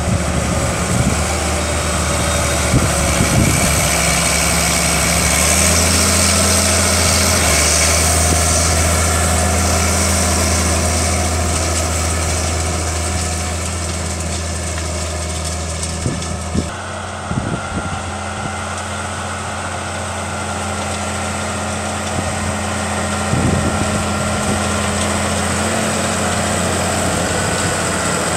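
Claas Challenger rubber-tracked tractor's diesel engine running steadily while pulling a cultivator through the soil. Its tone shifts abruptly a little past halfway.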